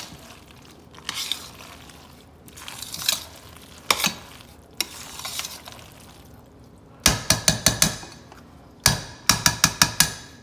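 A spoon stirring shredded cheddar into cooked elbow macaroni in a stainless steel pot: soft, wet scrapes and squelches. In the second half come two quick runs of six or seven sharp clanks each as the spoon strikes the metal pot, the loudest sounds here.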